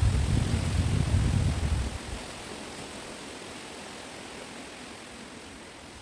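Wind blowing through a chestnut wood, a steady rushing hiss of moving branches and leaves. For the first two seconds a gust buffets the microphone with a loud low rumble.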